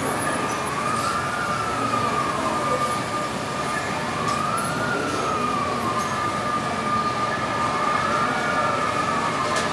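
Steady hall ambience of a large model railway layout with H0 trains running, overlaid by a siren-like tone that rises and falls three times, about every three and a half seconds.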